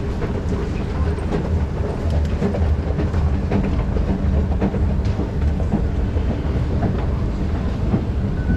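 Escalator running: a steady low rumble with scattered small clacks, getting a little louder about a second in, as the steps carry the rider down.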